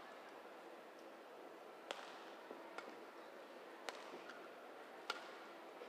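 Badminton rally heard faintly: sharp clicks of rackets striking the shuttlecock, three clear hits about two seconds and then just over a second apart, with a few weaker ticks between, over a low murmur of the hall.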